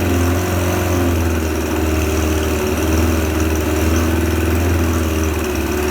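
Suzuki 25 hp outboard motor running steadily at an even speed in a test tank after repair.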